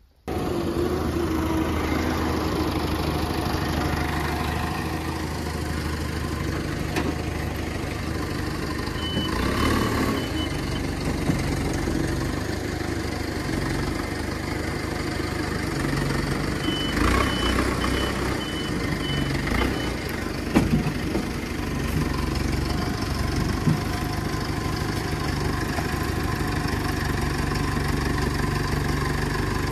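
Engine of a heavy earthmoving machine running steadily while it works, with a reversing alarm beeping in two runs, about a third of the way in and again past halfway. A few knocks sound over the engine.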